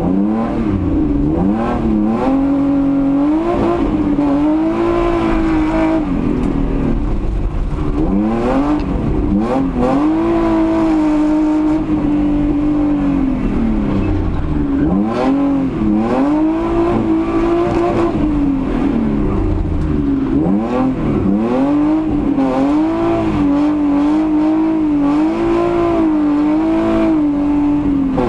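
BMW 320i E30 rally car's straight-six engine heard from inside the cabin, revving hard under load. Its pitch rises in repeated pulls that break off with sudden drops at gear changes and lifts, with stretches held at steady revs.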